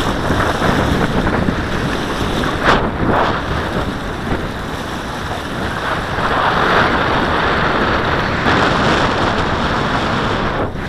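Strong, gusty wind blowing across the microphone over choppy lake water lapping at the shore. The wind grows louder about six seconds in.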